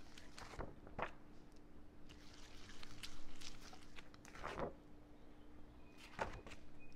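Irregular soft knocks, rustles and scrapes of hands handling food and rice-paper wrappers on a kitchen counter, a few at a time, over a steady low hum.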